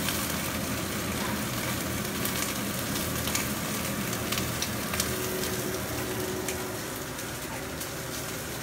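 Deboned chicken leg steak frying skin-side down in a hot pan: steady sizzling with scattered sharp spattering pops.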